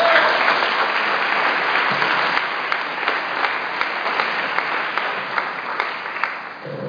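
Audience applauding a speaker being welcomed, with many single claps standing out, dying away near the end.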